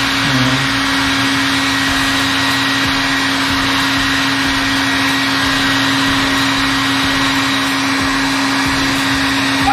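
Hair dryer blowing steadily: a motor hum under a rush of air, heating a vinyl decal so it softens and lies flat on the motorcycle's bodywork.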